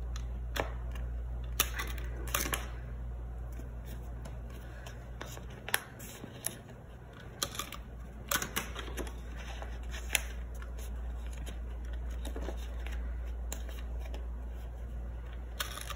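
Handheld Crop-A-Dile punch clicking as it bites through planner paper to cut disc-binding slots, a dozen or so sharp snaps at irregular intervals with paper rustling between them.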